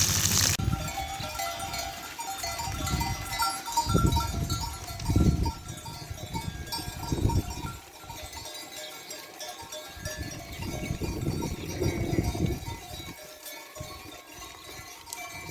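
Bells on a flock of livestock clinking and jangling irregularly, with low rumbles now and then.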